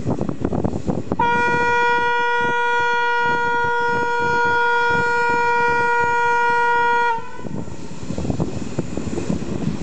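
Train horn sounding one long steady note for about six seconds, starting about a second in and cutting off abruptly, over the steady rumble of the moving train.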